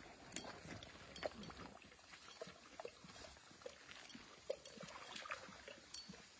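Dogs splashing in a shallow muddy puddle, pawing at the water and drinking from it: faint, irregular little wet splashes and slaps.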